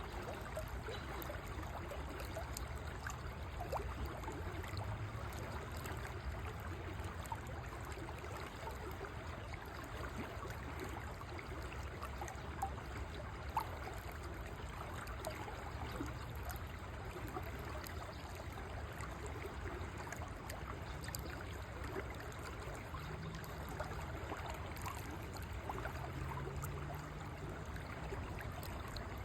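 A river flowing steadily: an even, continuous rush of moving water.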